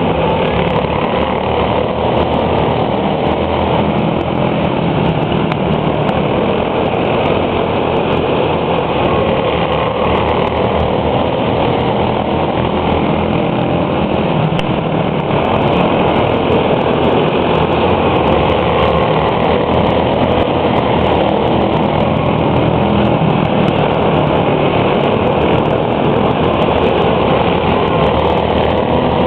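A pack of quarter midget race cars' small single-cylinder engines buzzing together at racing speed, a steady, dense drone that grows a little louder about halfway through.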